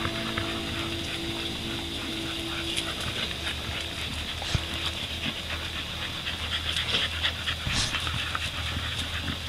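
American Bully pit bulls panting, a continuous run of quick breathy strokes, with a faint steady hum underneath.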